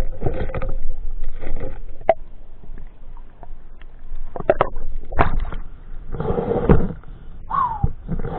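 Water splashing and bubbling around a camera in the sea as a spearfisher swims underwater with a speargun and breaks back through the surface near the end, in irregular bursts with a few sharp clicks.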